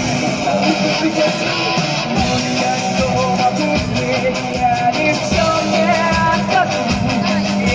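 Live rock band playing, amplified through a concert PA: electric guitars and drums with singing.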